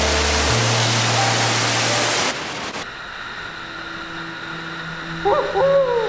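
Water pouring down a drop in an underground storm-drain collector, a loud steady rush, with background music under it. The rush cuts off suddenly a little over two seconds in, leaving a quieter hum, and a short wavering voice-like sound comes near the end.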